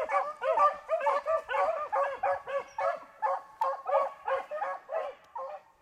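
A pack of beagles baying as they run a rabbit's scent trail. Several hounds' short rising-and-falling calls overlap at about three a second and ease off just before the end.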